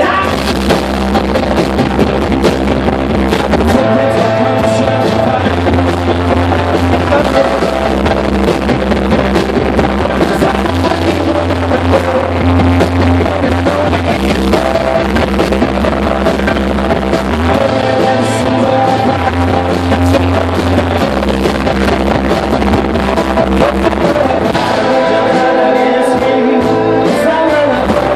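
Live rock band playing loudly with a singer, with guitars and bass sounding in a club.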